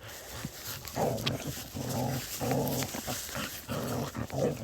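Airedale puppy growling in play, a series of low, rough growls of about half a second each, starting about a second in.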